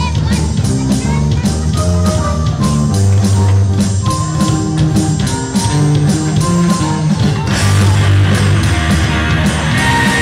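Rock music with no singing: a band passage with guitar, bass and a steady, even drum beat. About seven and a half seconds in, the sound grows fuller and brighter.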